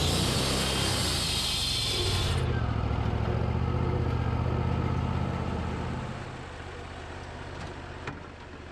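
Portable sawmill's engine running steadily while the blade finishes a cut through the log; the high hiss of the cut stops suddenly about two and a half seconds in. The engine then runs on and drops back to a quieter, lower idle near the end.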